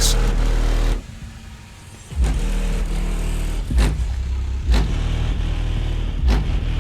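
Heavy, bass-laden electronic music played loud through car subwoofers. The deep bass cuts out about a second in and comes back about two seconds in, with sharp drum hits over it.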